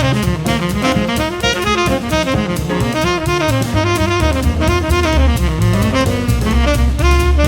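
Background music: upbeat jazz with saxophone melody, walking bass and drum kit keeping a steady beat.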